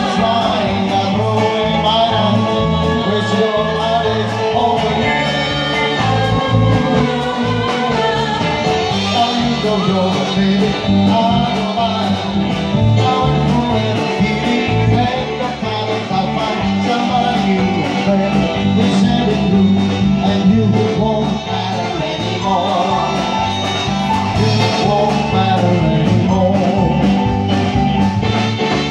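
Live rock-and-roll band playing, with a man singing into a microphone over electric guitar, saxophone and a steady drum beat.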